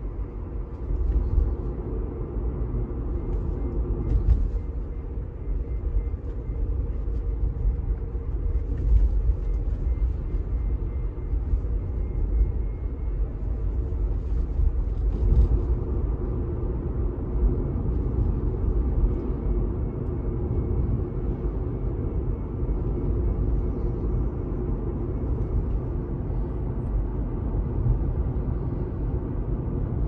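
Low road rumble inside a 2018 Tesla Model 3's cabin while driving, with a faint, steady whining whistle above it. The whistle drops out about 13 seconds in and comes back a few seconds later.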